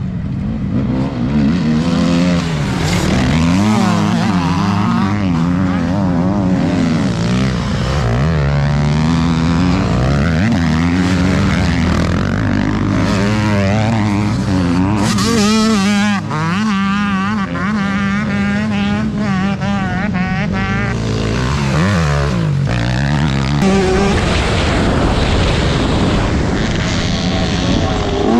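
Several motocross bikes racing on a dirt track, their engines revving up and down through the gears, with the pitches of several bikes overlapping. One bike rides close by about halfway through, its revving loudest then.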